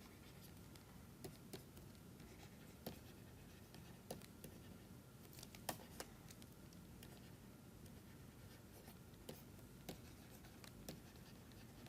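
Faint, irregular taps and scratches of a pen writing, over near silence.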